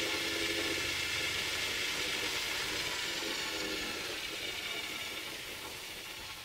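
Whirring and hiss from a Sony SLV-D350P DVD/VHS combo's running mechanism, with several high steady tones, fading gradually.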